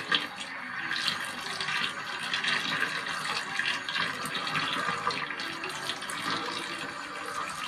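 Water running and splashing steadily in a basin, with frequent small splashes.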